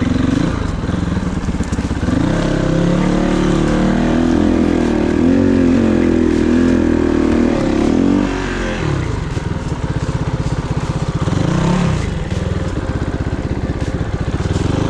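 Kovi 450i Pro enduro motorcycle's single-cylinder four-stroke engine under way, revs climbing about two seconds in and held high for several seconds. The revs drop about eight seconds in, then pick up again in short bursts near the end.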